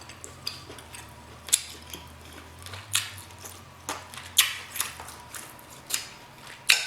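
Close-miked eating sounds, chewing and lip smacking, heard as irregular sharp wet clicks every second or so.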